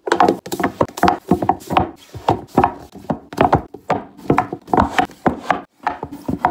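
Paperback books being set upright one after another on a shelf and pushed into a row: a quick run of knocks and taps, about four a second.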